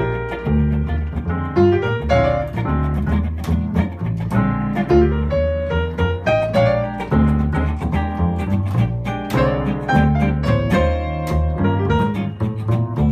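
Small jazz band playing live: a plucked double bass carries a strong repeating line under grand piano, hollow-body electric guitar and drum kit.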